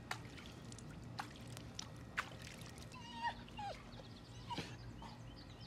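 Golden retriever giving a few short, falling whimpers, with scattered sharp clicks before them.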